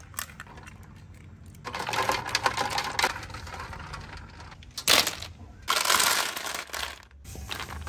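Bursts of clicking, rustling and crackling from hands handling food and hard objects, with a short sharp burst about five seconds in as the loudest moment.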